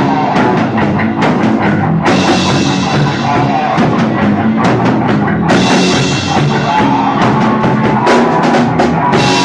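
Live rock band playing at full volume: electric guitar over bass and a pounding drum kit, with sustained guitar notes ringing over the drums.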